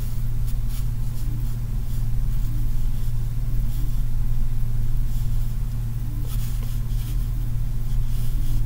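Steady low hum, with a few faint rustles of paper pages.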